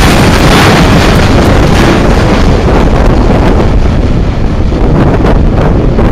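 Loaded steel-coil wagons of a freight train rolling past close by: loud steady wheel-on-rail noise with clicks as the wheels cross rail joints. Wind noise on the microphone runs through it, and the noise eases slightly as the last wagon passes, about four seconds in.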